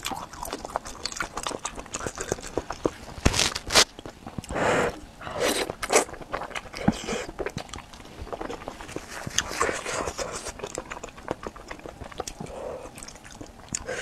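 Close-miked chewing and wet mouth sounds of someone eating spicy hot pot, with many small clicks and two sharp louder clicks a little over three seconds in.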